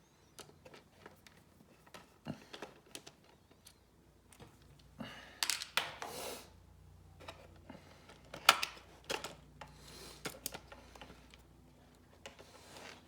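Hands working on a cassette four-track recorder during disassembly: scattered small clicks and taps of plastic and metal parts, with a stretch of rustling and scraping about five seconds in and a sharper click a little after eight seconds.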